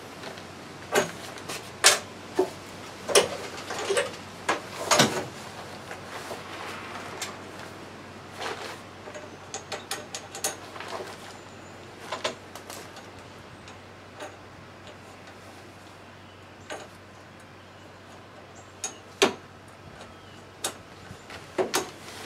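Scattered sharp clicks and knocks from hands working a boat blind's corner pin and R-clip on its pole. The clicks come thick in the first few seconds, again in a cluster in the middle, then thin out to two sharper knocks near the end.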